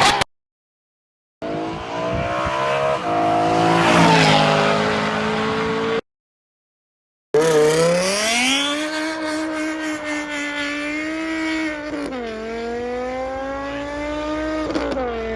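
Car engine revving and accelerating in two short clips separated by cuts to silence. The engine note climbs and steps through changes in pitch in the first clip. In the second it rises, holds steady, dips about twelve seconds in and then holds again.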